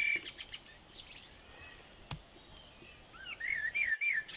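A bird singing short warbling phrases, once near the start and again in the last second or so, over faint outdoor background noise. There is a single light knock about two seconds in.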